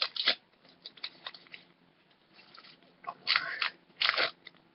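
Foil wrapper of a Pokémon TCG booster pack crinkling as it is opened: a short crackle at the start, then two louder crackly bursts about three and four seconds in.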